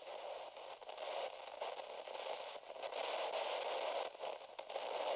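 Hissing, crackling static noise that swells and fades unevenly.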